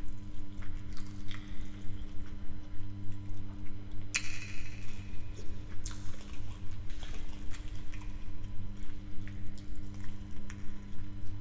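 Close-miked wet, sticky chewing and mouth smacking of jollof rice being eaten by hand, pulsing at about three chews a second, with a louder wet smack about four seconds in. A steady low hum runs underneath.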